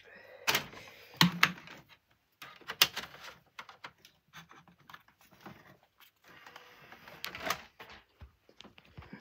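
Scattered clicks and knocks with rustling in between as a DVD is handled and loaded into the open disc tray of a Blu-ray player; the sharpest knocks come about half a second in, at about a second and a quarter, just under three seconds in, and about seven and a half seconds in.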